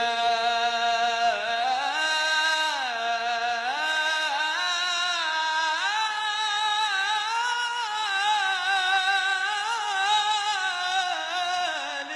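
A male munshid singing Arabic religious chant (inshad in praise of the Prophet), one voice holding long notes and sliding between them in ornamented, wavering runs.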